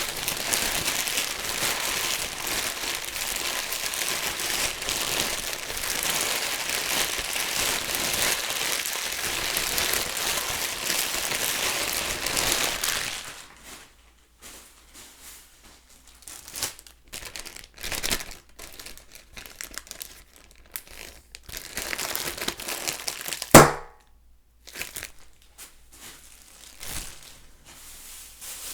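Plastic bag being crumpled steadily and densely for about the first thirteen seconds, then handled more sparsely with scattered crinkles. Later comes a single sharp pop, the loudest sound, as the bag is burst.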